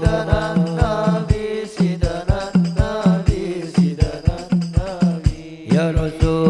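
Sholawat song in praise of the Prophet: a singing voice with a winding, ornamented melody over steady low drum beats, about three a second, and a held low note underneath.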